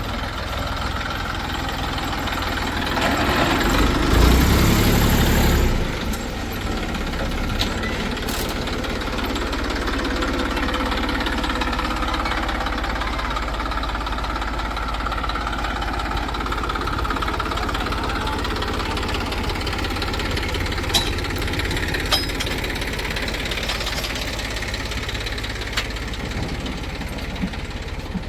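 Diesel engines of heavy machinery idling, with one revving up about three seconds in and dropping back abruptly a few seconds later. A few short sharp knocks come in the later part.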